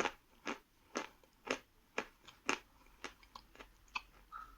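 A person chewing a piece of soft Khrapovsky edible chalk, crunching about twice a second. The crunches grow fainter after about three seconds.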